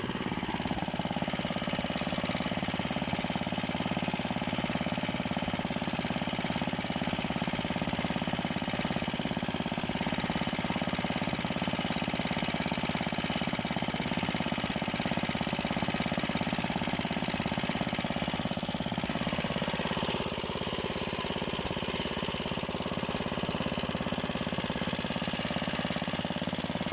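Luch walk-behind tractor's single-cylinder engine running steadily under way, towing a trailer, with a fast, even clatter of firing strokes.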